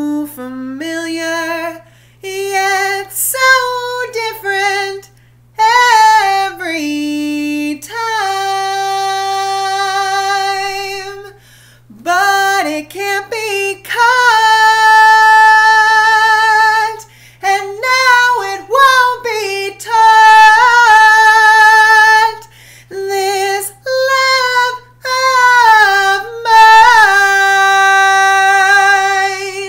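A woman singing unaccompanied, in phrases with long held notes of two to three seconds each. The last held note stops near the end.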